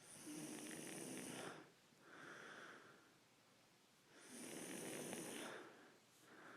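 A sleeping man snoring: two long, loud snores about four seconds apart, each followed by a quieter breath.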